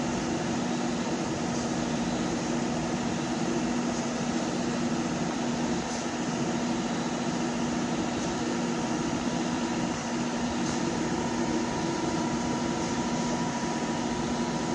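Steady machine hum with a constant low tone and a fainter higher tone over an even hiss.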